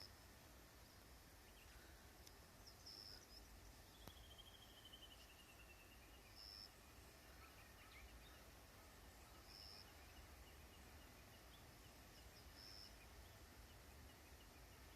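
Faint outdoor quiet with small birds calling: a short high note repeated about every three seconds, and a descending trill about four seconds in, over a low rumble.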